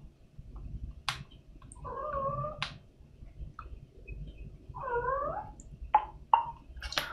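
Two short, wavering animal calls, about two and five seconds in, with a few sharp clicks scattered between them.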